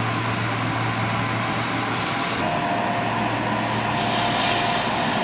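Arc welding on steel firebox staybolts: a steady crackling hiss over a low steady hum, the hiss growing brighter and louder from about two-thirds of the way in.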